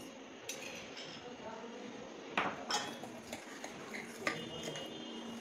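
A metal spoon clinking against a stainless steel bowl, a series of scattered taps with a brief high ring after some, as condensed milk is spooned in.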